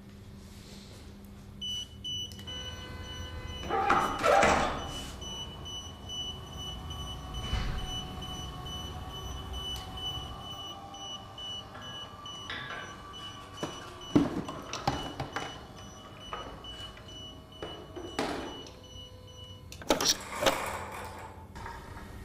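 Electric lifting motor of a GH2F ceiling patient hoist running, a steady high whine that starts a couple of seconds in and stops shortly before the end, as the hand control drives the lift. A few knocks and rattles come along the way, loudest at about four seconds and near the end.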